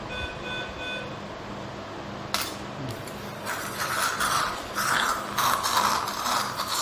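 Three short electronic beeps from an operating-room patient monitor in the first second, then a sharp click. From about three seconds in, a surgical suction tube hisses and slurps, fluctuating, as it draws blood from the open abdomen.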